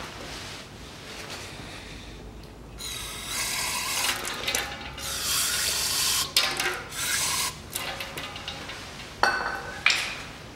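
Aerosol spray can hissing in several bursts for about five seconds as it is sprayed onto a car's wheel hub and steering knuckle. Two short knocks follow near the end.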